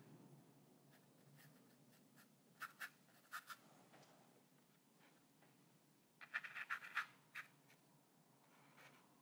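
Faint paintbrush scratching over paper textured with dried joint compound as paint is worked on: a few short strokes about two and a half seconds in, then a quicker run of strokes about six to seven seconds in.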